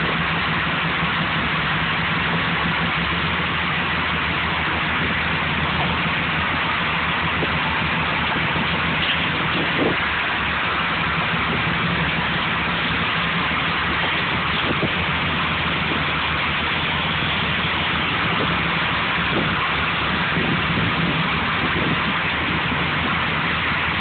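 Boat engine idling, a low even hum under a constant hiss.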